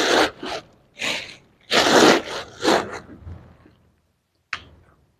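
Four short bursts of rustling as a fabric handbag is handled, then a single sharp tap about four and a half seconds in.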